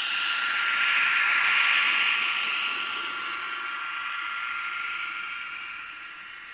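N-scale model passenger coaches rolling past on the track, a steady rushing rattle of small wheels on rails with a thin high whine. It is loudest about two seconds in as the train passes close, then fades.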